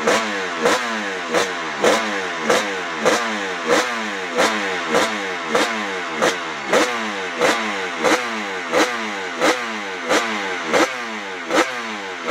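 Honda NS500's two-stroke V3 racing engine revved in quick, regular throttle blips, about one every 0.6 seconds, the pitch falling away after each.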